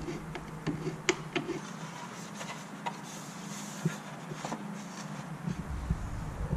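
Scattered light metallic clicks and taps of a 5/16 Allen wrench working the main bolt out of a Harley's stock air cleaner cover, at irregular intervals over a low steady hum.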